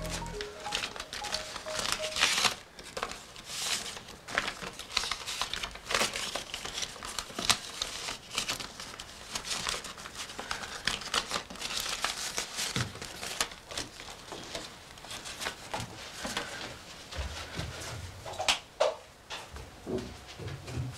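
Paper envelope and note crinkling and rustling as they are handled, a dense run of short crackles.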